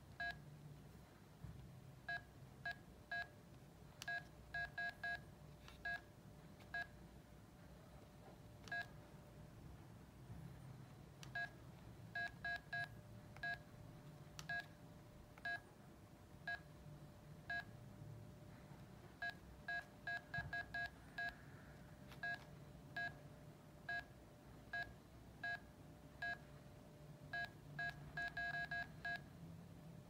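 Nokia 918 analog mobile phone's keypad beeps: short, identical beeps, one per keypress, some single and some in quick runs of three to six, as its menus are stepped through. A few sharp clicks and a faint steady tone sit underneath.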